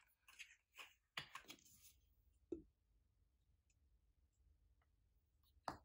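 Faint clicks and small knocks from handling a bottle of black acrylic paint, with one short soft knock about two and a half seconds in, then near silence.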